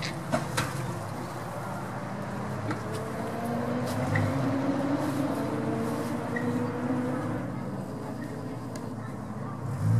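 Jeep Grand Cherokee engine running as the truck crawls off-road, its pitch rising slowly through the middle. A few sharp knocks come about half a second in.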